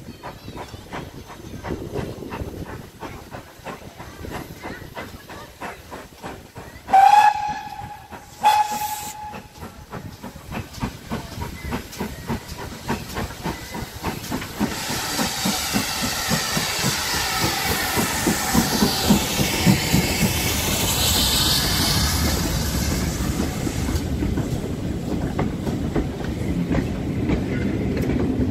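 GWR Manor-class 4-6-0 steam locomotive 7827 'Lydham Manor' gives two short whistle blasts, then approaches and passes close by with a loud hiss of steam over a low chuffing beat. Near the end its coaches roll past with a clickety-clack over the rail joints.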